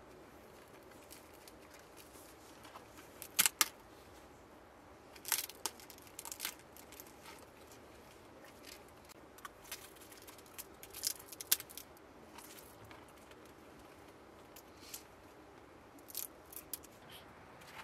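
Crusty baked flatbread torn apart by hand, its crust giving short, crisp crackles in scattered clusters, along with soft handling of bread and fish.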